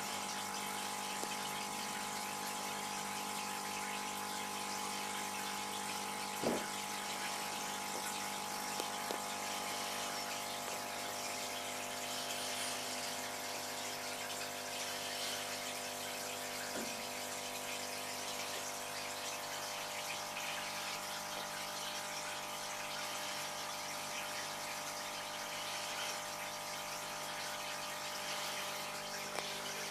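Aquarium pump humming steadily over the sound of moving water, with a light knock about six seconds in and another about seventeen seconds in.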